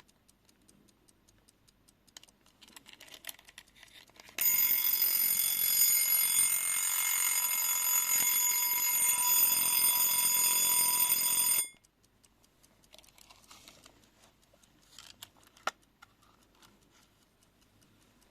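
Europa wind-up travel alarm clock ringing its mechanical alarm, a loud continuous ring lasting about seven seconds that starts about four seconds in and cuts off suddenly. Before and after it, the movement ticks faintly, with a few light clicks.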